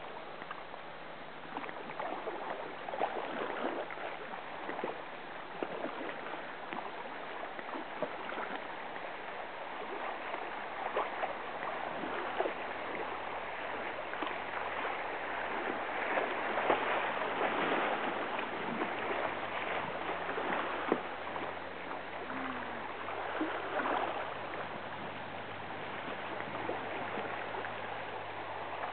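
River water rushing along a kayak as it moves downstream, with irregular splashes every second or few.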